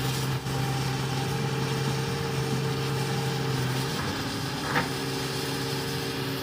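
Komatsu excavator's diesel engine running steadily, its low hum easing about four seconds in. A single sharp click sounds a little under five seconds in.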